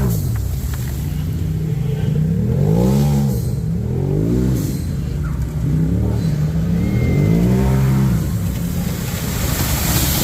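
A vehicle engine revving up and easing off again and again, its pitch rising and falling several times.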